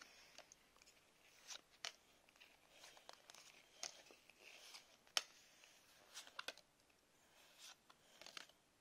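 Faint, irregular clicks and light rustles of Pokémon trading cards being slid off a hand-held stack one at a time, with one sharper card snap about five seconds in.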